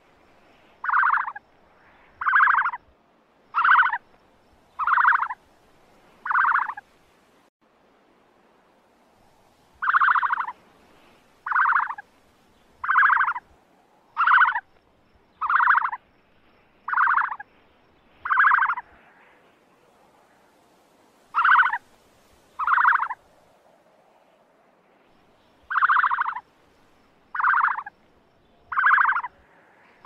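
Ostrich calling: short, alike calls of about half a second each, repeated about every second and a half in runs broken by pauses of a few seconds.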